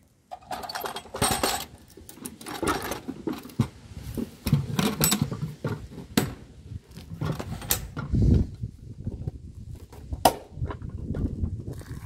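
Clear ribbed diffuser cover of a Schréder Altra street lamp being handled and fitted back onto the lamp housing: irregular scraping and rattling with several sharp clicks and knocks.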